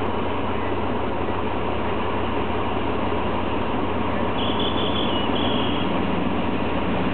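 Alstom diesel-electric locomotive approaching with a passenger train, its engine running with a steady low rumble. A brief high-pitched squeal sounds in two short parts about four to six seconds in.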